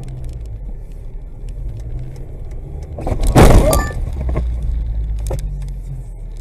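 Low rumble of a car heard from inside its cabin. About halfway through comes a loud crash lasting about a second, crunching and rattling, as the car hits something. A few sharp clicks follow.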